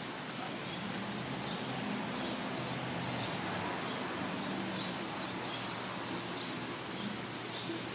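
Steady hiss of rain falling in a thunderstorm downpour. Short high chirps recur through it about once or twice a second.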